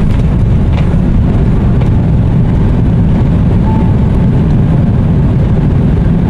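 Jet airliner cabin noise heard from inside the cabin: a loud, steady low rumble as the plane rolls along the runway just after landing.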